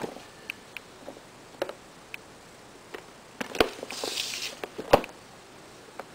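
Hands handling and opening a cardboard product box: light taps and clicks of fingers on the box, a brief sliding rustle about four seconds in as the lid comes off, and two louder knocks, one just past the middle and one about five seconds in.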